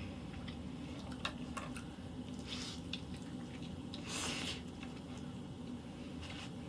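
Quiet eating sounds: wet mouth clicks and smacks while chewing, with a louder, short noisy sound about four seconds in, over a steady low hum.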